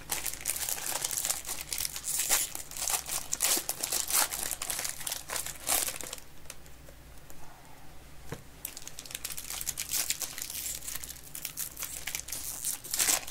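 Foil trading-card pack wrappers crinkling and tearing as they are opened by hand. The crackling eases off for a couple of seconds in the middle, then picks up again.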